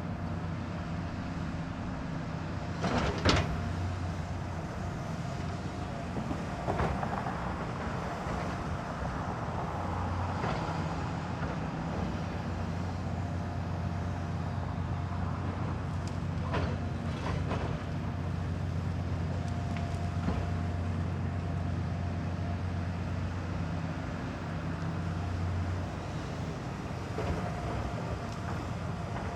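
Heavy diesel construction machinery running steadily at a low drone, with a few sharp metallic clanks scattered through, the loudest about three seconds in.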